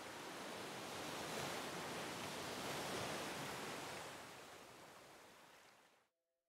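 A soft rushing noise, like surf, with no tones in it, swelling and then fading out to silence about six seconds in.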